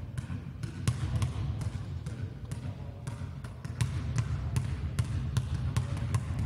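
Basketball being dribbled low and fast on a gym floor: a steady run of sharp bounces, about three a second.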